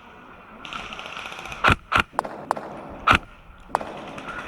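Airsoft rifle firing single shots: three loud sharp cracks about a second and a half in, a moment later and about three seconds in, with several fainter clicks between them.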